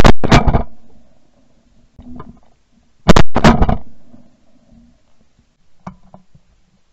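Shotgun blasts from a gun-mounted camera, very loud and close: two shots in quick succession at the start, and two more about three seconds in, each pair about a third of a second apart and ringing off for a moment after.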